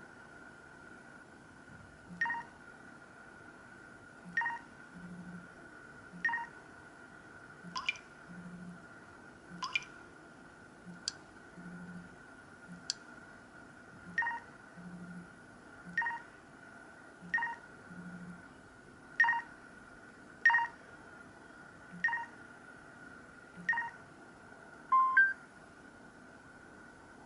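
LG KP500 mobile phone playing one of its built-in tones: a sparse run of short electronic beeps, about one every one and a half to two seconds, over a faint steady high whine.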